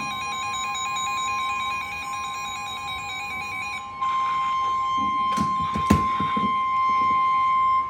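NOAA Weather Radio warning alarm tone: one steady high beep, about 1050 Hz, held without a break, louder from about 4 s in. It signals that a new alert is about to be read. A second warbling electronic sound from another radio plays under it and stops about halfway. A few knocks and clicks come around two thirds of the way in.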